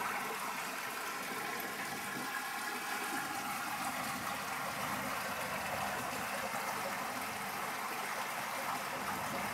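Steady sound of running water.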